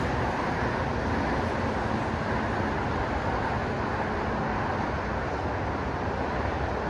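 Steady hum of distant road traffic from the city below.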